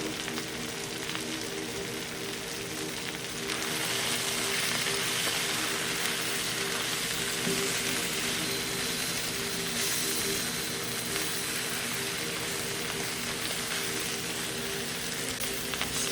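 Spinach and other ingredients sizzling in a hot frying pan as the spinach wilts down. The sizzle is steady and grows louder about three and a half seconds in.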